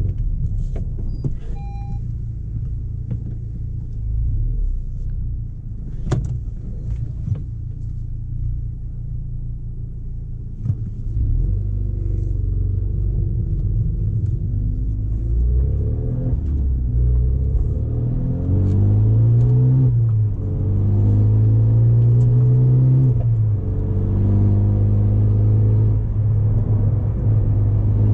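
Renault Mégane RS turbocharged four-cylinder with an Akrapovič exhaust, driving: a low rumble at light load for the first half, then the exhaust note climbs and drops in pitch several times as the car pulls through the gears. It is loudest after about two-thirds, before a sudden drop in pitch at a shift.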